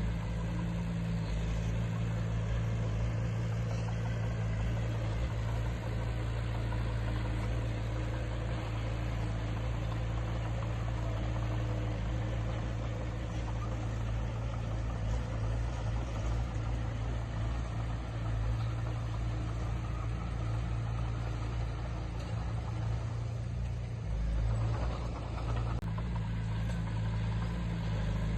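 Diesel engine of heavy earthmoving equipment running steadily at a constant speed, a low, even drone with little change.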